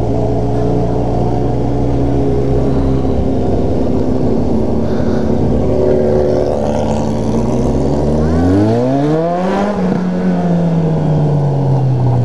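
Motorcycle engine heard from the rider's own bike, running steadily at a low cruising pitch. About eight seconds in it revs up in a quick rising sweep, then the pitch drops and sinks slowly as the throttle eases off.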